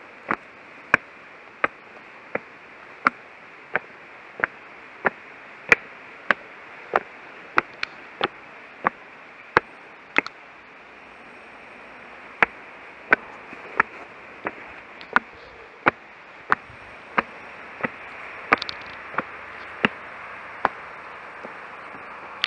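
Footsteps climbing stone steps: sharp taps of shoes on stone, about one every two-thirds of a second, pausing briefly near the middle, over a steady hiss.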